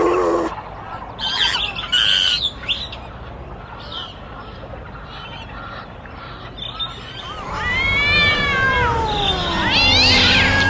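Animal calls: short high bird-like squawks and chirps in the first few seconds, then, from about seven seconds in, long drawn-out cat meows that rise and fall in pitch.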